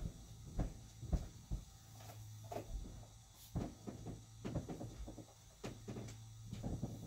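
Scattered knocks, bumps and shuffling as someone moves about behind a hanging blanket, the sharpest knock about a second in, over a steady low electrical hum.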